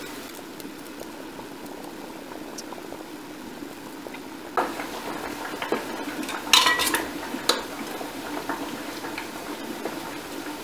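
Metal canning lids clinking and being set down onto the rims of glass jars of jam, starting about halfway through, over a pot of water bubbling at a steady boil.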